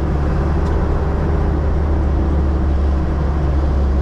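Diesel vehicle's engine and road noise while driving, a steady low drone.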